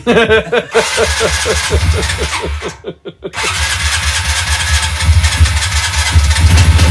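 Quad bike (ATV) engine being cranked with a fast repeating starter rhythm, then catching about three seconds in and running steadily, growing louder toward the end.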